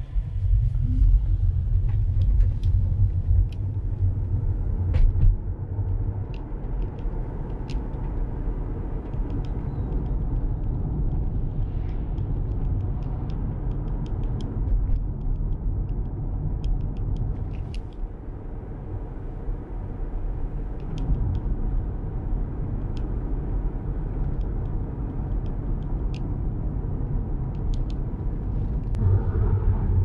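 Road and tyre noise inside the cabin of a 2019–2020 Tesla Model 3 with single-pane front windows, driving at about 30 mph: a steady low rumble with scattered faint ticks.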